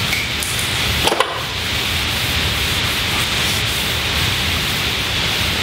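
Paper towels rubbing across a lab bench top as it is wiped down with 70% ethanol, over a steady hiss, with one short click about a second in.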